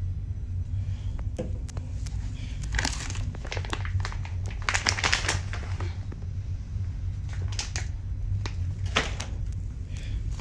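Rustling and crinkling of bags and clothing being handled in a packed suitcase, in irregular bursts, over a steady low hum.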